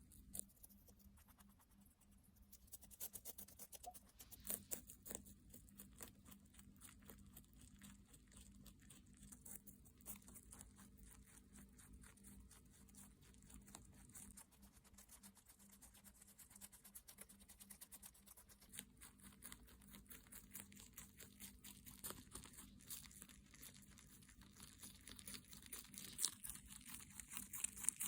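Netherland Dwarf rabbit chewing raw vegetables: quiet, rapid crunching bites, several a second, that keep going almost without a break.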